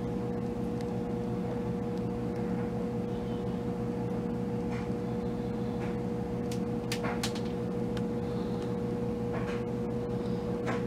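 Steady mechanical hum with one clear droning tone, and a few faint soft clicks now and then.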